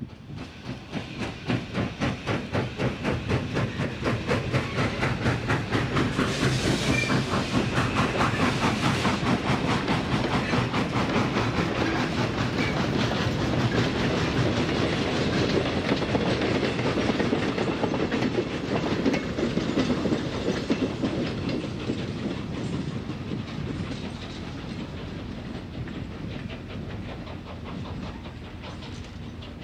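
Norfolk and Western 611, a Class J 4-8-4 steam locomotive, working hard up a gentle grade: fast, even exhaust beats that build as it comes close and passes, then fade away as the train moves off.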